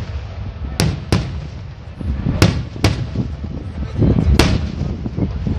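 Aerial firework shells bursting overhead: five sharp bangs, two around a second in, two more near the middle and one past four seconds, over a steady low rumble of further bursts.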